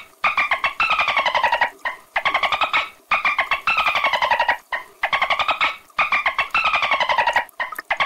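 Dolphin calls: a string of buzzy pulsed squawks, one after another with short gaps, each call falling in pitch as it goes.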